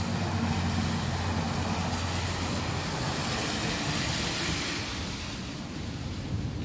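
A car passing on the rain-wet street: a low engine hum, then tyre hiss on the wet road that swells to its loudest about four seconds in and fades away.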